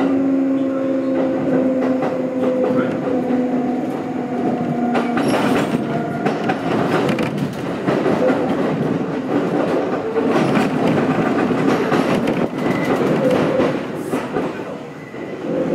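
Kintetsu 1220 series train running, heard from inside the car. Its GTO-VVVF inverter hums with a steady tone that falls slowly in pitch and cuts out about five seconds in. After that, wheel and rail noise with clattering over rail joints takes over as the train slows for its next stop.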